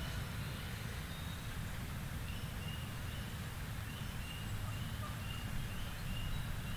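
Quiet outdoor ambience with a low, steady rumble. From about two seconds in, a faint high chirp repeats roughly twice a second.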